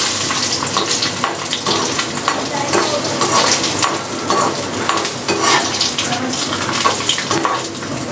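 Dry fruits (cashews and almonds) sizzling as they fry in hot ghee in a steel kadhai. A perforated steel spoon stirs them in quick repeated strokes, scraping and clinking against the pan.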